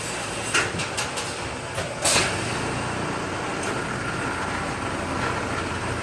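Steady mechanical running noise with a low hum. A few sharp knocks and clatters come in the first two seconds, the loudest at about two seconds in.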